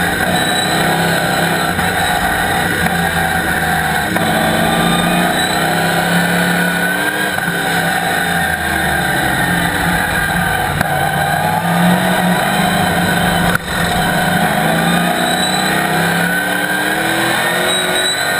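Chevrolet Camaro race car's ZZ4 small-block V8 heard from inside the cockpit at racing speed, revs rising and falling through gear changes. The sound drops out momentarily about thirteen seconds in.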